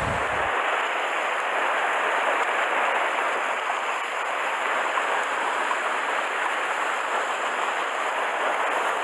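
Rough sea churning and foaming over shoreline rocks, a steady hiss of surf with no single wave crash standing out.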